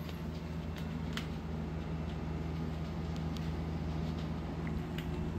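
Steady low hum of room cooling equipment, a wall air conditioner and fan, with a few faint clicks from the camera being handled under the benchwork.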